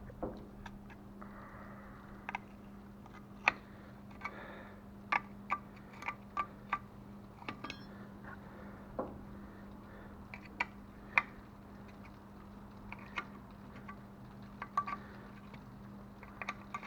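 Irregular metallic clicks and clinks of hand tools and bolts against a Yamaha YZ450F engine while the cylinder head is being taken off, some ringing briefly, over a steady low hum.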